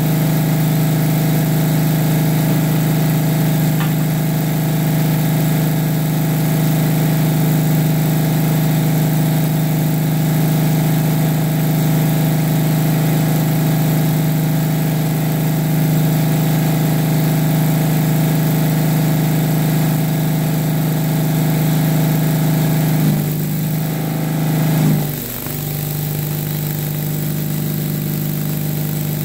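Onan twin-cylinder engine of an engine-driven welder running steadily. About 23 seconds in, its note wavers and dips twice as the stick-welding arc is struck, then it runs steady again under the welding load, a little quieter.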